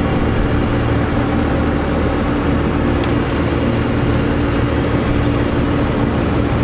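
Cummins diesel in a second-generation Dodge Ram pickup, heard from inside the cab while driving: a steady low engine drone mixed with road noise.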